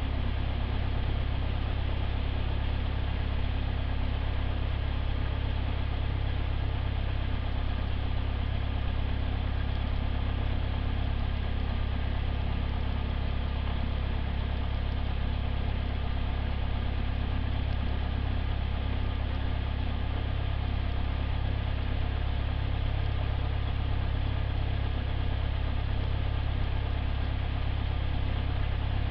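Cessna 172's piston engine and propeller idling steadily, a low, even drone.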